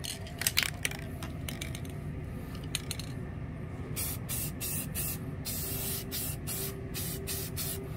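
Rust-Oleum aerosol spray paint can spraying paint onto brake calipers in short hissing bursts: a couple near the start, then a quick run of short sprays with one longer one in the second half.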